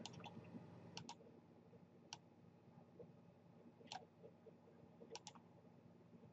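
Near silence with about seven faint, scattered computer clicks, two of them coming in quick pairs.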